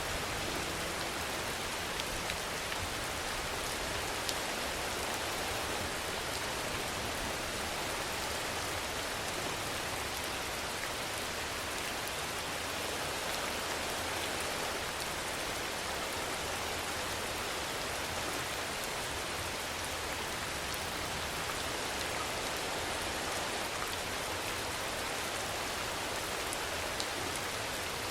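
Steady rainfall: an even hiss with a few louder drops ticking now and then.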